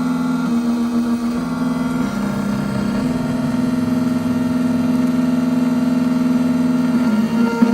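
Triton Plus key-cutting machine running through a key cut: a steady motor hum whose pitch shifts in steps a few times in the first three seconds, then holds steady, with a brief wobble near the end.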